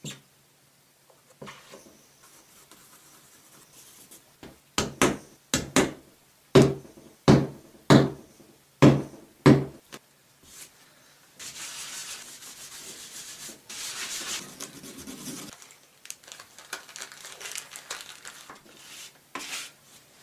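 A run of about eight sharp knocks in quick succession. Then the applicator tip of a paint tube rubs across a surface for about four seconds, followed by lighter, uneven rubbing near the end.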